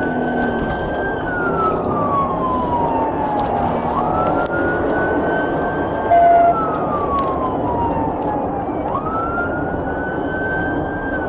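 Police car siren wailing, each cycle rising quickly, holding, then falling slowly, repeating about every four and a half seconds over steady engine and road noise during a pursuit. A short steady tone sounds once about halfway through, the loudest moment.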